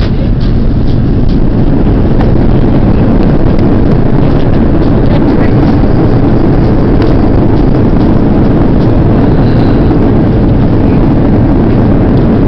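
Loud, steady roar inside the cabin of an Airbus A340-300 decelerating on the runway just after touchdown: engine noise and the rumble of the wheels on the runway.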